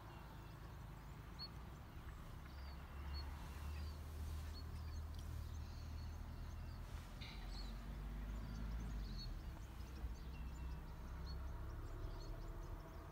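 Birds chirping in short, scattered calls, over a steady low rumble on the microphone.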